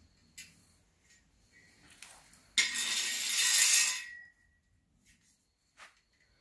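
Hand tools clinking a few times, with a loud rasping hiss about a second and a half long near the middle.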